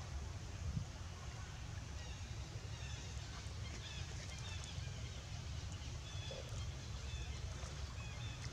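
Outdoor ambience: a steady low wind rumble on the microphone, with short high bird chirps starting about two seconds in and repeating through the rest.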